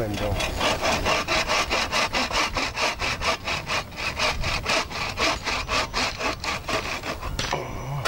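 Bow saw cutting through a wooden pole in quick, even back-and-forth strokes, pausing briefly near the end.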